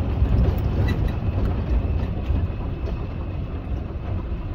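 Safari vehicle driving along a dirt park track: a steady low engine and tyre rumble, with a few small knocks and rattles from the vehicle.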